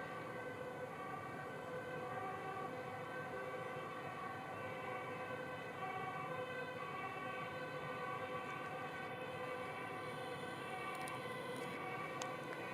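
Emergency-vehicle sirens sounding continuously, their tones shifting slowly, over a steady low background rumble.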